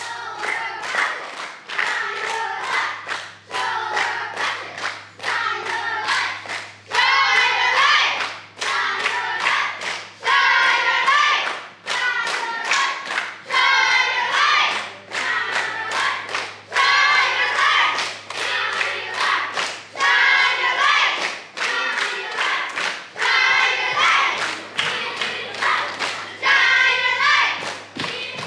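A group of children's voices singing or chanting together in short repeated phrases, over a steady beat of sharp claps and thuds about two a second. The voices grow louder about seven seconds in.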